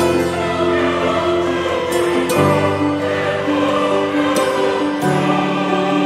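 Background music: a choir singing long held chords, which change about two and a half seconds in and again about five seconds in.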